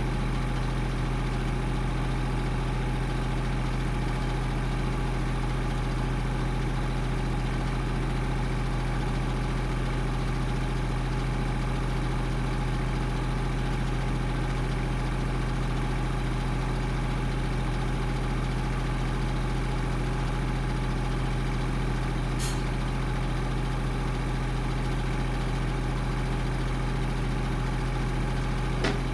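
An engine idling steadily at an even speed, with a brief sharp click about 22 seconds in and another near the end.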